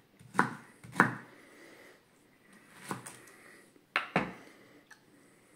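Kitchen knife cutting peeled pineapple on a wooden cutting board: a few separate knocks of the blade against the board, the loudest about four seconds in.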